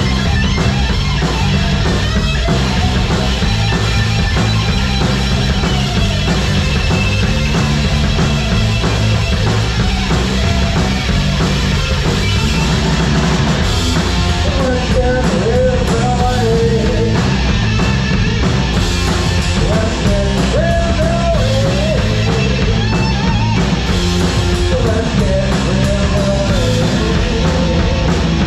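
Live rock band playing: electric guitar, bass and a drum kit with a steady beat. From about halfway, a wavering, bending melodic line rises over the band.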